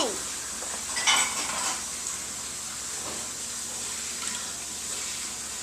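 Small hard plastic Kinder Surprise toy pieces and capsule being handled, with a short clatter about a second in and faint clicks after.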